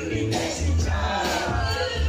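Loud dance music with a heavy bass beat and singing, with a crowd's voices in the background.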